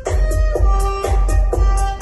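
Music played loud through a car sound system with four subwoofers and fourteen 6×9 speakers: heavy, pulsing bass under a melody of held notes and quick, steady percussion.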